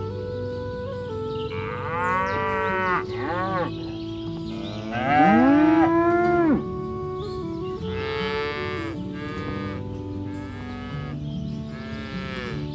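Village cattle mooing: about six calls in turn, each one rising then falling in pitch, the loudest and longest about five seconds in. Soft sustained background music plays underneath.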